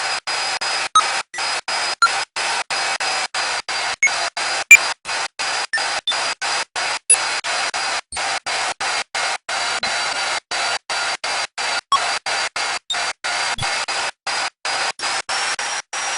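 Steady hissing noise with a faint high whine, cut by short dropouts about three times a second and dotted with a few sharp clicks.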